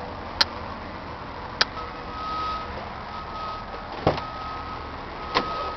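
Sharp clicks and knocks of a truck's cab door and handles as someone climbs into the cab, with one heavier thump about four seconds in. A high electronic tone sounds on and off in long pulses from about two seconds in.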